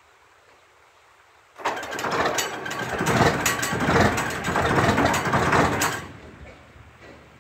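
John Deere 4850 tractor's turbo diesel engine in a cold start. It comes in suddenly about a second and a half in, runs rough and uneven for about four seconds, then falls away sharply.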